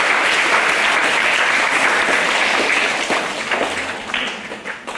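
An audience of schoolchildren applauding, dense and loud, then thinning to scattered individual claps and dying away over the last two seconds.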